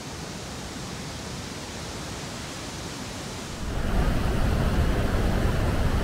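Iguazú River's muddy water rushing over rocks in rapids, a steady rush of water. A little past halfway it switches suddenly to the much louder, deeper rush of the river pouring over the brink of one of the Iguazú Falls.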